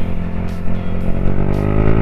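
Yamaha Aerox scooter's single-cylinder engine speeding up while riding, its pitch rising steadily from about a second in, over low wind rumble on the action camera's microphone.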